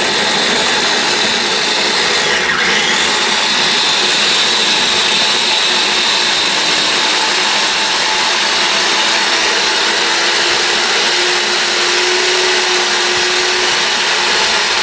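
Small electric mini blender running continuously, chopping jalapeño peppers; its motor note creeps slightly higher in the second half.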